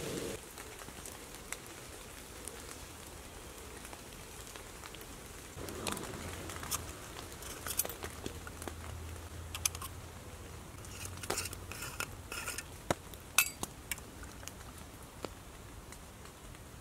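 Small stainless-steel alcohol stove parts being handled and set down on the forest floor: scattered light metallic clinks and clicks of the burner, its lids and a mesh pot stand, mostly in the second half, the sharpest about two-thirds through.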